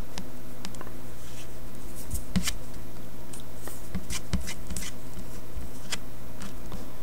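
Scattered small clicks and rubs of hands and a sculpting tool working a piece of epoxy putty on a cutting mat, the two sharpest taps a little after two seconds and just past four seconds, over a steady low electrical hum.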